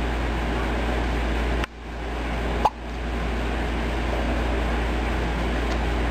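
A single short hiccup about two and a half seconds in, over a steady background hum and hiss.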